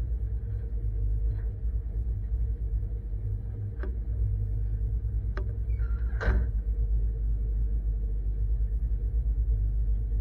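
A vehicle engine idling: a steady low rumble. A few short sharp clicks or knocks come about four, five and six seconds in.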